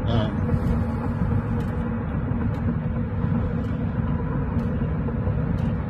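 Steady engine and road rumble inside a moving car's cabin, with faint ticks about once a second.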